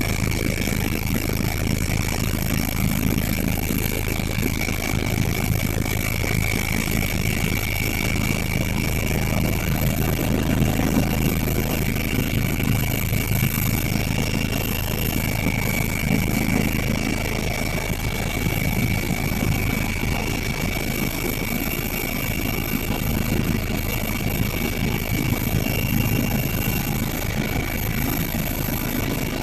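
Helicopter's turbine engine and rotor running steadily, a low rumble with a constant high-pitched whine over it.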